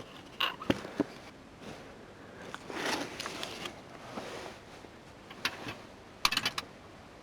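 Clicks and rattles of small plastic and metal parts being handled, with a short rustle in the middle: a few sharp clicks in the first second, a cluster of quick rattling clicks near the end.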